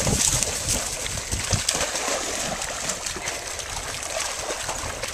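Several dogs splashing as they leap off the bank into a pond and wade through the shallows: a continuous run of splashes and sloshing water, loudest in the first second or so.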